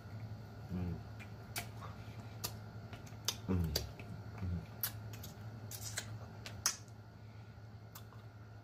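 Close-up mouth sounds of eating chicken feet: wet lip smacks and sucking clicks scattered throughout, with three short, low hummed sounds around one, three and a half and four and a half seconds in. A steady low hum underneath.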